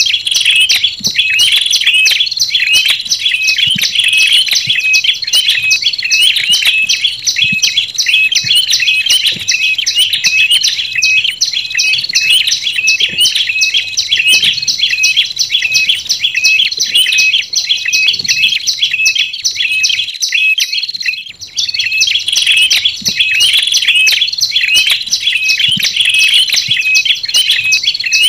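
Tailorbird lure calls: olive-backed tailorbird (prenjak lumut) song combined with ashy tailorbird (prenjak kepala merah) calls. It is a loud, unbroken run of high, sharp chirping notes, several a second, with a brief dip about twenty seconds in.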